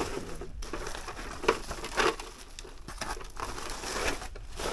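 Rubbish being handled and moved: irregular crinkling and crunching, with scattered knocks, the loudest about one and a half and two seconds in.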